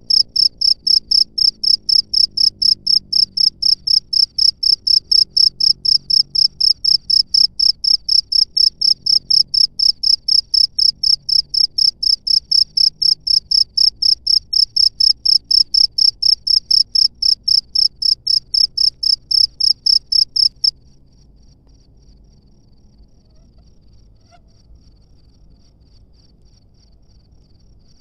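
A cricket chirping loudly in an even rhythm, about three to four chirps a second. Near the end the loud chirping cuts off suddenly, leaving a much fainter, quicker cricket trill.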